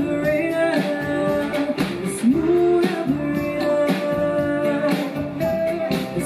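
Live band music: a woman sings long held notes into a microphone over drums keeping a steady beat.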